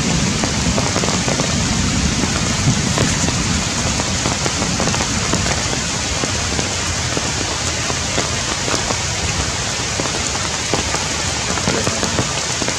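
Heavy rain falling steadily on the forest canopy, a dense hiss of rain with many individual drops striking close by.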